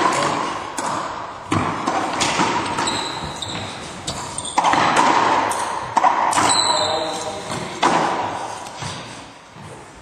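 Racquetball hits during a rally: the ball struck by racquets and smacking off the court walls, about seven sharp hits that each ring out in a long echo in the enclosed court.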